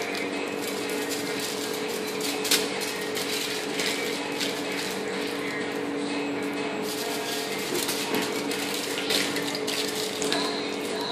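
Aluminium foil crinkling in short, irregular crackles as it is pinched and wrapped around the bone ends of fried chicken lollipops, over a steady hum.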